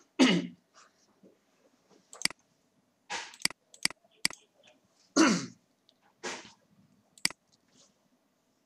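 A person coughing twice, about five seconds apart, with a weaker cough soon after the second. A few short sharp clicks fall in between.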